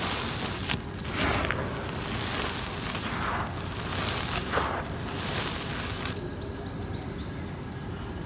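Dry, gritty cement powder poured and sifted through the fingers onto a pile, a grainy hiss that swells and fades a few times. The pouring gets softer over the last couple of seconds as a hand works the pile.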